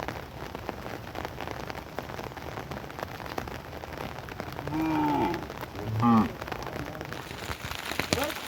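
Steady rain falling on surfaces, a continuous hiss scattered with many small drip clicks. Two short pitched calls with falling pitch stand out above the rain about five and six seconds in; the second is the loudest sound.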